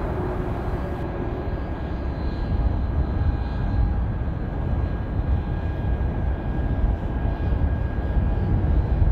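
Thai Airways Airbus A380-800 with its four Rolls-Royce Trent 900 jet engines, rolling out along the runway after landing. The engines give a steady deep rumble with a faint high whine over it.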